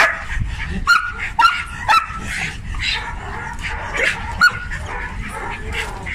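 Belgian Malinois barking and yipping in play, about six sharp, high barks, four in the first two seconds and two more about four seconds in.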